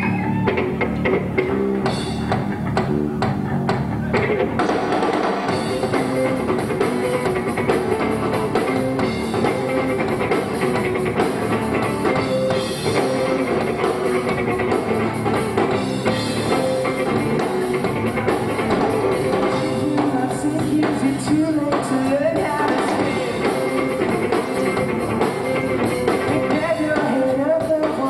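A three-piece rock band playing live: electric guitar, bass guitar and drum kit, with the sound filling out with cymbals about four seconds in. Recorded on VHS tape.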